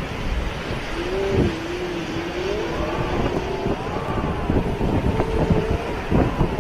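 Hurricane wind gusting hard against the microphone, with a wavering howl that rises and falls in pitch from about a second in.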